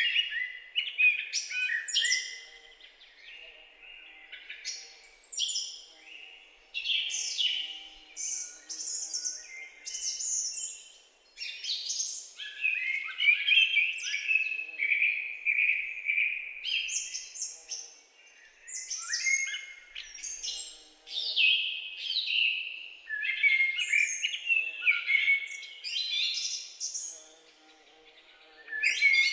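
Forest ambience of several songbirds singing and calling at once: quick overlapping chirps, trills and whistled glides that swell and fade in short phrases, with hardly a gap.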